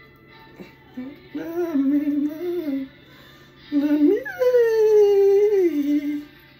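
A voice humming a wordless tune in two phrases, the second leaping up in pitch and then sliding slowly back down.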